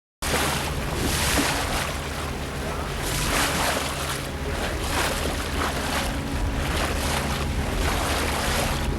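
Wind buffeting the microphone and water rushing past the hull of a sailboat under way, a loud steady rush with gusty flickers and a low hum underneath. It starts abruptly just after the start.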